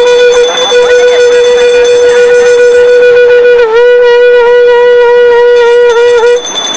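A wind instrument of a Nepali panche baja band holds one long, loud note. It dips slightly in pitch about halfway through and wavers a little, then cuts off suddenly about six and a half seconds in.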